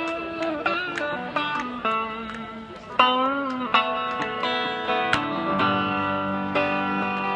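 Electric guitar played through a small Roland Cube amplifier: a melody of picked single notes, several bent up in pitch and shaken with vibrato, the longest bend about three seconds in.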